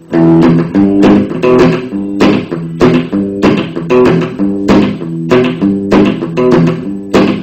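Music: a song's guitar introduction, strummed chords on a steady beat that kick in a moment after the start, with no singing yet.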